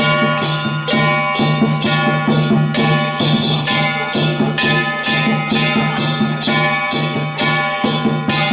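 Loud traditional Taiwanese temple-procession music: clashing metal percussion such as cymbals and gongs, struck in a fast, steady beat over a low pulsing tone.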